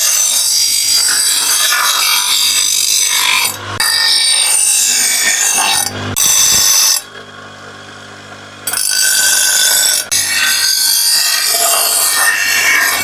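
Power grinder grinding a forged steel cleaver blade: long stretches of loud, harsh hissing while the blade is pressed to the wheel. About seven seconds in, it lifts off for nearly two seconds and only the motor's steady hum is left.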